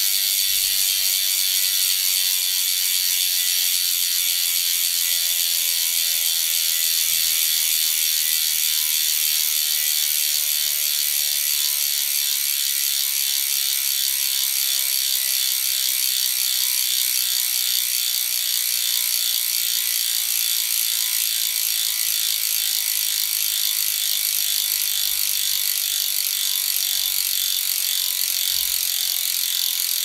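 DT Swiss 370 three-pawl freehub clicking in a fast, steady buzz as the rear wheel spins freely on a stand. The pitch of the buzz falls slowly as the wheel coasts down.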